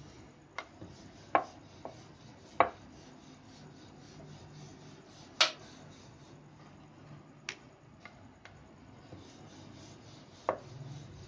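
Wooden rolling pin rolling out paratha dough on a wooden board, rubbing, with about nine sharp, irregular knocks of the pin against the board, the loudest in the first half. A faint low hum runs underneath.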